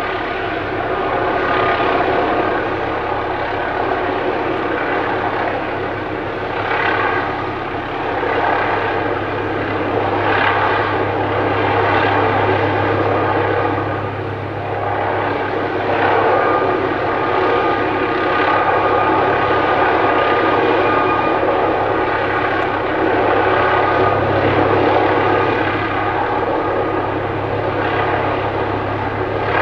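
MD900 Explorer police helicopter, a twin-turbine NOTAR type with no tail rotor, flying low overhead. Its rotor and turbine engines make a steady low hum with a higher whine, swelling and easing gently in loudness as it turns.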